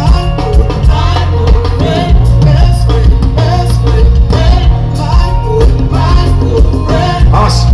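Live band music played loud through a concert PA, with a heavy bass line and a voice singing over it.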